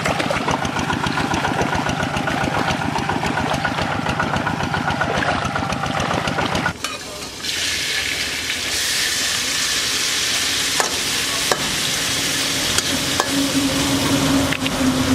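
Food frying in a pan: a steady sizzle. A small engine runs under it with a fast pulsing beat until it cuts off about seven seconds in, after which the sizzle grows brighter and a low steady hum comes in near the end.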